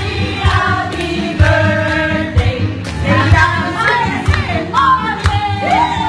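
Several voices singing together over music with a steady low beat.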